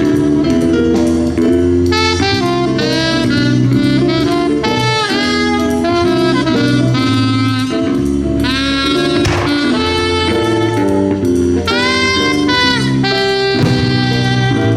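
Live jazz band playing: a saxophone lead melody over a bass line and drums.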